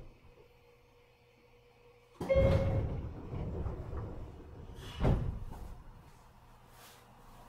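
A 103-1500 series commuter train's sliding passenger doors working at a station stop. A sudden hiss and rumble comes about two seconds in, and a sharp thud of the doors about five seconds in.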